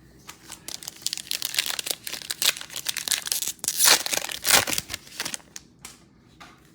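A trading-card pack's foil wrapper being torn open and crumpled, with a few seconds of crackling that peaks around four seconds in.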